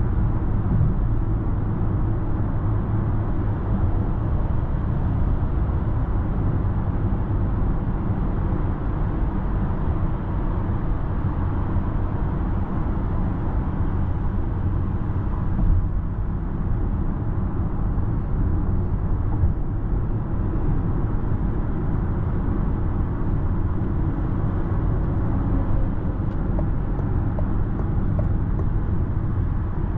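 Steady cabin noise inside a 2024 Citroen C5 X plug-in hybrid cruising at motorway speed: low tyre roar and wind noise, with no sudden events.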